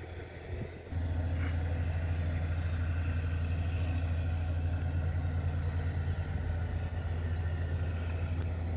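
A steady low engine hum that sets in abruptly about a second in and runs evenly without changing pitch.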